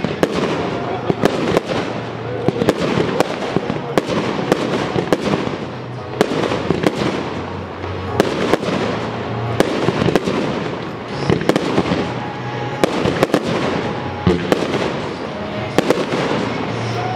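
Professional fireworks display: aerial shells bursting in an irregular, rapid string of sharp bangs, several every couple of seconds, over a continuous crackle and rumble.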